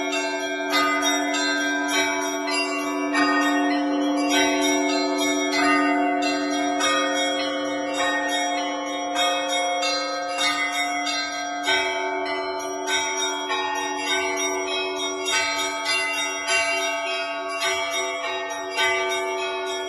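Russian Orthodox church bells ringing: several bells of different pitches struck in a quick, unbroken pattern, their tones ringing on over one another.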